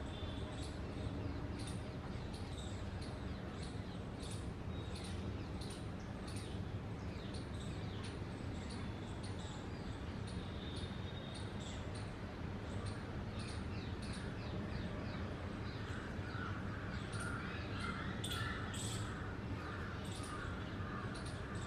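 Birds calling around a feeding spot: a steady series of short, high chirps repeating about twice a second throughout, joined in the second half by harsh, chattering calls lower in pitch, over a steady low background rumble.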